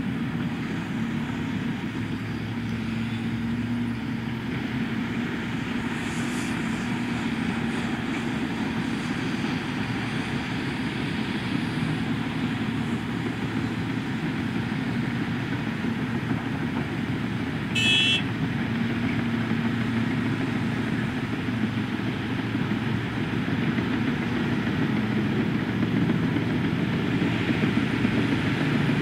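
Diesel engines of a Cat 330F excavator and Cat 730C2 articulated dump trucks running steadily under load, with a brief high-pitched tone a little past the middle. The engine noise grows louder near the end as a loaded dumper pulls away.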